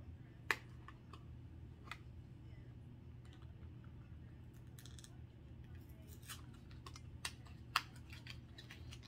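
Hands working at opening a small plastic cosmetic package: scattered light clicks and ticks, with two sharper snaps, about half a second in and near the end. A steady low hum runs underneath.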